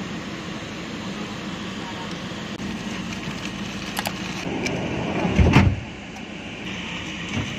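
Steady hum of a van's cabin while riding, with a few clicks about four seconds in and a louder rush that ends in a heavy thump about five and a half seconds in.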